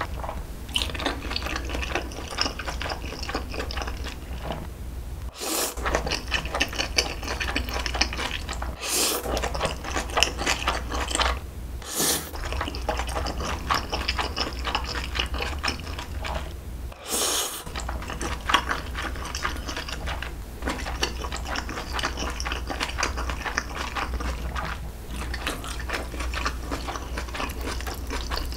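Close-miked eating of jaengban guksu tray noodles with vegetables: a dense run of wet chewing and clicking mouth sounds, with a few short louder moments.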